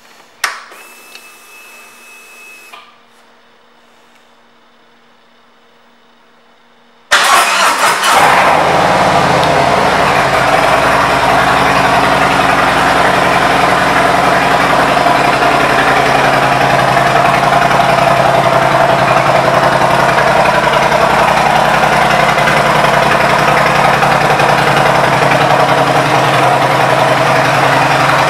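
A 2017 Harley-Davidson Street Glide Special's Milwaukee-Eight 107 V-twin being started. A click and a faint thin whine come first; about seven seconds in the engine catches and settles into a steady, loud idle through its aftermarket exhaust.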